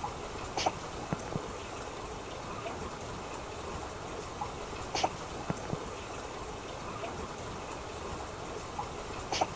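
Steady trickling-water ambience with scattered soft drips and clicks. It is a short loop that repeats about every four and a half seconds.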